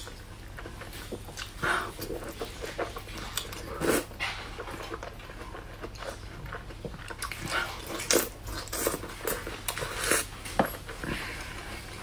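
Close-miked wet eating sounds of soft braised eggplant in chili sauce: chewing and lip smacking in irregular short bursts, a few of them louder.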